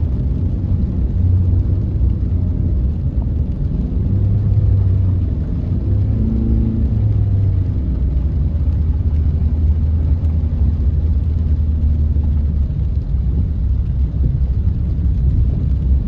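A vehicle driving along a flooded road: a steady low engine and road rumble, with the engine note shifting briefly about six seconds in.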